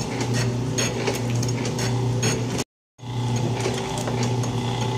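Old Atlas metal shaper running under power on a cutting pass: a steady motor hum with a sharp click about twice a second as the ram strokes back and forth. The sound cuts out briefly about halfway through.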